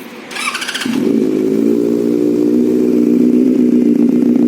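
Benelli 600i inline-four motorcycle engine being started: a brief high-pitched starter whir, then the engine catches about a second in and settles into a steady idle.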